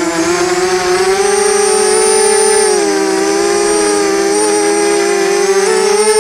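FPV quadcopter's electric motors and propellers whining, the pitch drifting down and up as the throttle changes, with a dip about three seconds in and a rise near the end. Heard close from the drone's onboard camera.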